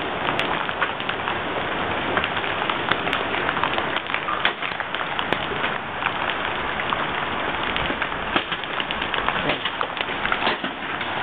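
Hailstorm: hail and rain falling steadily, a dense patter with many sharp individual cracks of stones striking.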